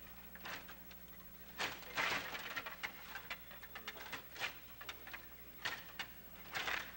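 Stiga table hockey game in play: irregular plastic clicks and clacks of the control rods being pushed, pulled and spun and the players striking the puck, with denser clatter about two seconds in and again near the end.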